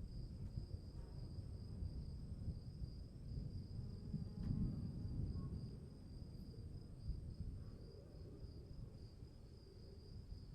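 Steady chirring of insects with a low rolling rumble of distant thunder underneath, the rumble swelling about four seconds in.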